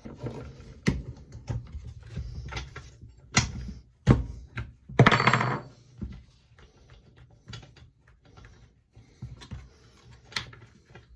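Hand tools and metal parts handled on a chainsaw: a string of irregular clicks, clinks and knocks, with a louder scraping rustle about five seconds in. This is the spark plug being taken out to prepare the saw for a compression test.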